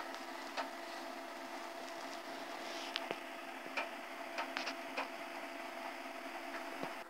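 Old Vendex Headstart III PC running with a steady hum from its fan and drives. Irregular sharp clicks of disk-drive heads seeking come through it while a file operation's progress box is on screen.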